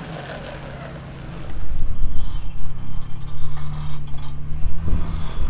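Lifted off-road Jeep's engine running low and steady as it crawls down a rock obstacle. The sound gets much louder about a second and a half in.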